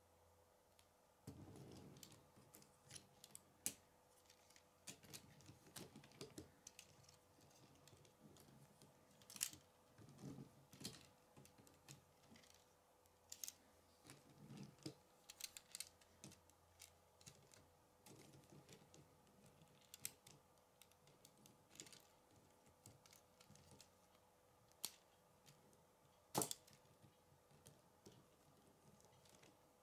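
Plastic K'nex rods and connectors clicking and snapping together as they are handled and fitted, in irregular clicks with soft handling rustles between them; a few snaps stand out louder, the loudest near the end.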